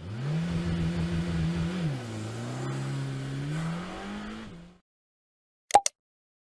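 A car accelerating. Its pitched drone rises and holds, drops at a gear change about two seconds in, then climbs again before cutting off suddenly. A sharp click follows near the end.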